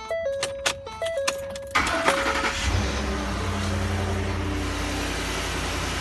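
A short run of electronic tones, then the starter cranks briefly and the 2010 Ford F-150's 5.4-litre three-valve V8 catches and settles into a steady idle. It starts right up now that the burnt fuse that caused the crank-no-start has been replaced.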